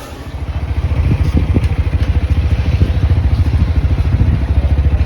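Motorcycle engine running with an even, fast low beat, getting louder over the first second and then holding steady.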